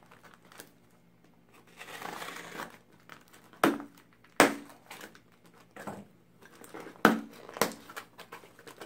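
Scissors slitting the packing tape on a small cardboard box, with a stretch of scraping and tearing, then four sharp snaps and knocks as the tape gives and the cardboard flaps are pulled open.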